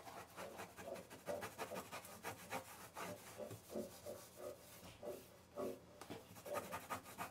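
Disinfectant wipe rubbed quickly back and forth along the seam between a shower wall and the shower floor, a faint scrubbing of many short strokes.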